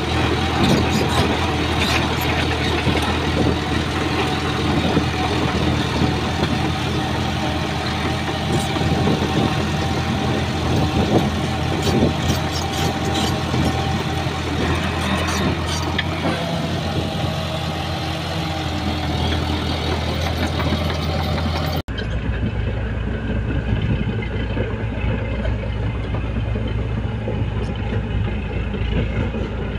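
Heavy diesel engine of a Shantui bulldozer running steadily, with scattered clanks and knocks from the working machine. About two-thirds of the way through the sound cuts abruptly to a duller-sounding recording of an engine still running.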